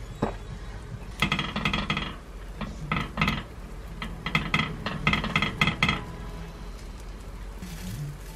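Chopsticks clattering against a cast-iron takoyaki pan in quick runs of ringing taps and scrapes as the batter balls are turned over low heat, from about a second in until about six seconds in.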